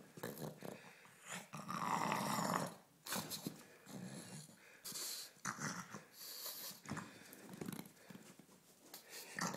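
Pug growling and snorting in play: a string of short, rough bursts, the loudest lasting about a second around two seconds in.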